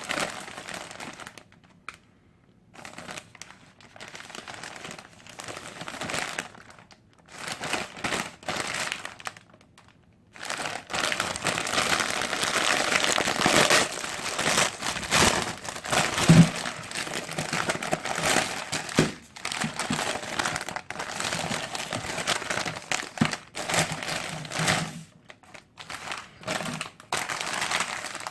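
Plastic instant-ramen packet crinkling and rustling in irregular bursts as it is handled, with short quiet gaps in the first third.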